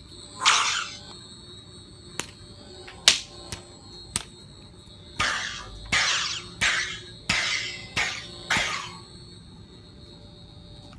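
Hitoren V3.0 lightsaber's sound board playing through its built-in speaker: a steady electronic hum with a swing swoosh about half a second in and a run of five more between about five and nine seconds in, as the blade is swung. A few sharp clash clicks come between about two and four seconds in.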